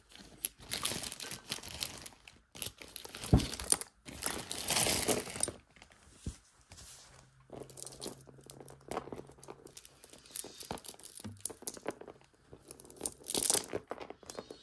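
Plastic zip-top bag crinkling as a hand rummages in it and draws out a beaded necklace, in three bursts over the first six seconds. Then quieter rustling and light clicks of acrylic beads as the necklace is laid out on a plastic tray, with one more short crinkle near the end.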